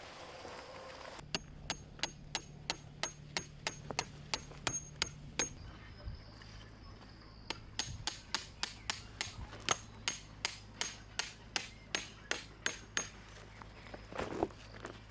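Tent pegs being driven with a hammer: quick, even strikes about three a second, in two runs with a pause of about two seconds between them.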